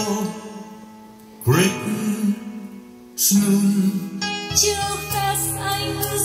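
Recorded music playing through a pair of Onkyo M55II bookshelf speakers with 20 cm woofers, heard in the room. Two big sustained chords strike about a second and a half and three seconds in, then bass and a drum beat come in about four and a half seconds in.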